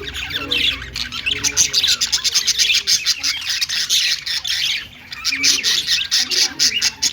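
Budgerigar warbling and chirping in a fast, continuous chatter, with a brief pause about five seconds in.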